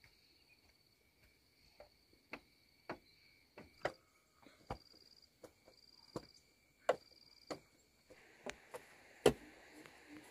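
Repeated dull knocks of a hand tool ramming soil down around the foot of a bamboo post, roughly one or two a second, the loudest a little after the middle.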